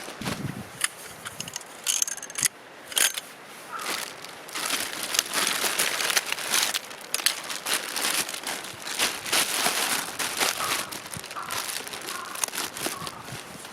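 Irregular crinkling and rustling, like something being crumpled or handled, with scattered sharp clicks and knocks. It gets busier from about four seconds in.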